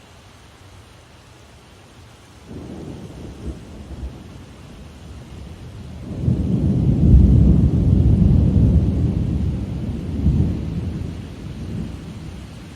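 Thunder rumbling over a steady rain shower: a deep rumble comes in about two and a half seconds in, swells to its loudest in the middle and slowly fades away near the end, while the rain's hiss goes on underneath.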